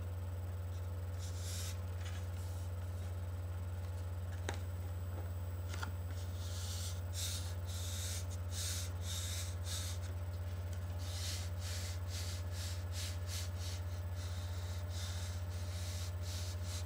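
Hands rubbing a thin peel-and-stick foam grip onto a carbon paddle shaft, pressing it down in quick back-and-forth strokes. The rubbing comes in soft scratchy runs, busier in the second half, with a couple of small clicks. A steady low electrical hum lies under it all and is the loudest sound.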